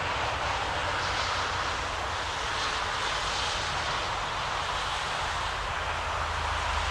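Electric locomotive humming and hissing steadily, with a low drone underneath, as it stands or moves very slowly in the station.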